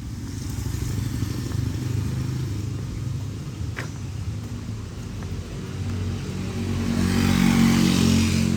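Motor vehicle engine running as it draws closer and passes, getting louder towards the end with a rush of tyre hiss at its closest.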